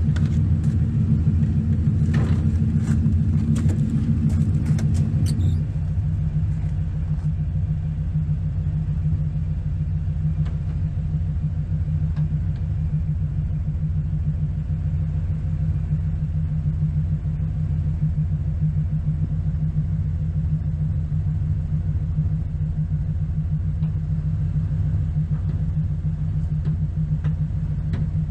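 Chevrolet LT1 5.7-litre V8 in a 1996 Camaro Z28 idling steadily with a deep, even rumble. A few short knocks and clicks sound over it in the first five seconds or so, after which the idle is a little quieter and duller.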